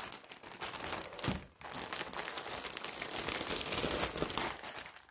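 Clear plastic bag crinkling and rustling as it is handled and pulled open, with a short lull about a second and a half in.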